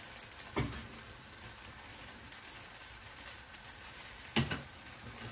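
Faint, steady sizzle of morels flambéing with cognac in a frying pan, with two brief knocks, one about half a second in and one near the end.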